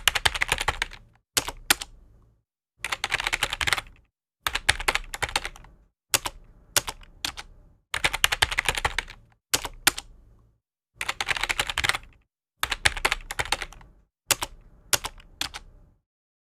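Rapid keyboard-typing clicks in about ten bursts of a second or so each, with short silent gaps between them.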